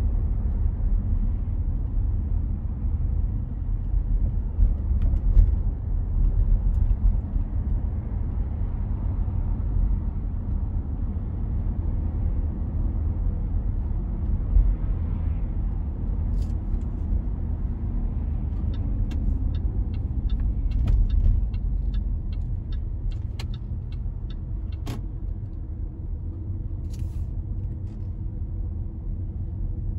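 Road noise of a moving car heard from inside the cabin: a steady low rumble of engine and tyres. Past the middle comes a run of light ticks at about two a second.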